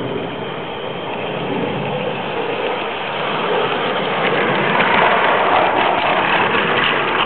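LGB garden-railway diesel locomotive running past with its wagons: the electric motor and gearbox whir, growing loudest about five seconds in as it passes closest, with a rapid clicking of wheels on the track.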